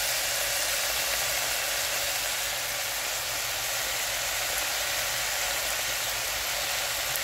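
Steady sizzling of fresh spinach leaves frying in hot oil in a stainless steel pan, the moisture from the leaves spitting as they start to wilt.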